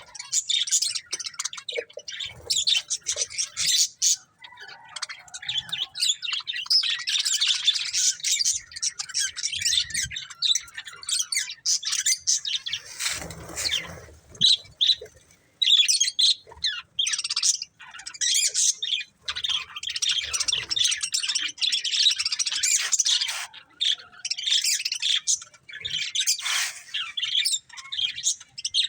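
Budgerigars chirping and warbling in rapid, near-continuous high chatter, with short pauses. About halfway through, a brief rustling noise cuts in.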